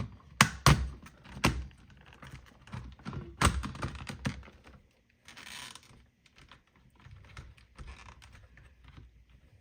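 Plastic clicks and knocks of a replacement alarm battery and its wires being pushed back into an alarm panel's plastic housing. Several loud knocks come in the first second and a half and one more at about three and a half seconds, followed by a brief rustle near six seconds and lighter taps.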